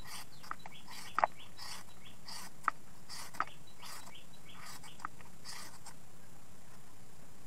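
Hand-held shredder scraping over fresh coconut meat in repeated crisp strokes, about two a second, as strips are shaved off; the strokes fade out near the end. A few short bird chirps stand out, the loudest just over a second in.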